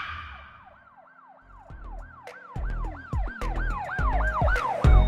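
A siren wailing in quick rising-and-falling sweeps, about three a second, with deep bass thumps and sharp clicks coming in about halfway and growing louder toward the end.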